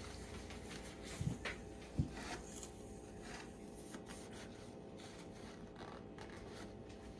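Cloth rubbing and scuffing as spray oil is wiped off a shotgun's metal, with two light knocks about one and two seconds in.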